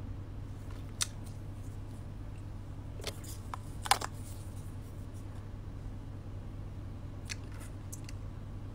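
A few small sharp clicks and lip smacks from applying lipstick and pressing the lips together, the loudest about four seconds in and more near the end, over a steady low hum.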